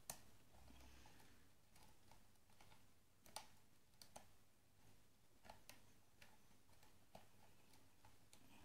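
Faint, irregular metallic clicks of a steel hook pick raking and lifting the pin stacks of an ABUS rim cylinder under light tension from a tension wrench, a click every half second to a second.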